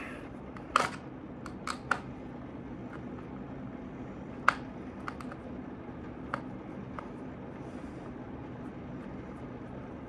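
Scattered sharp clicks and taps of a plastic RC car remote controller being handled as its battery compartment is opened, over a faint steady hum.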